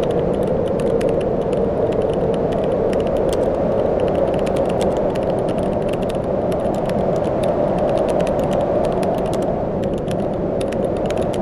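Rough surf washing steadily onto a beach, with many small clicks scattered through the rush.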